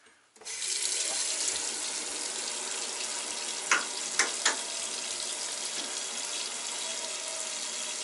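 Bathroom sink faucet turned on about half a second in, water running steadily into the basin, with three short clicks about halfway through.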